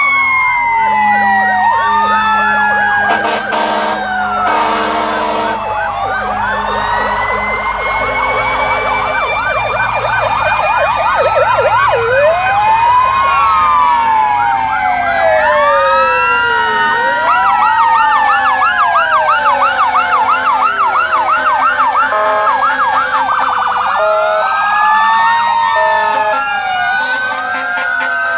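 Several fire engine sirens sounding at once, overlapping slow rising-and-falling wails with fast yelps. Short steady horn blasts come a few seconds in.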